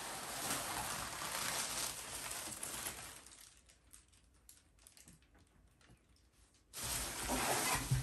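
Plastic air-cushion packing rustling and crinkling as a boxed item is pulled out of a cardboard shipping box. The rustling dies down about three seconds in, leaving faint scattered clicks, and a loud burst of rustling returns near the end.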